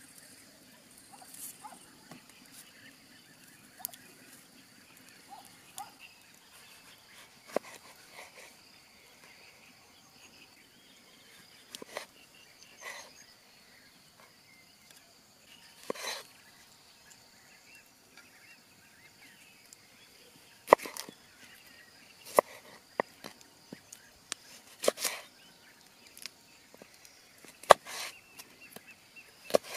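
Knife cutting vegetables on a wooden stump board: short sharp knocks of the blade against the wood, scattered at first, then louder and in quick runs through the second half. A faint steady high-pitched drone underneath.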